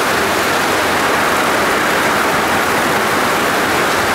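Heavy rain bucketing down: a steady, dense hiss of pouring water that holds even throughout.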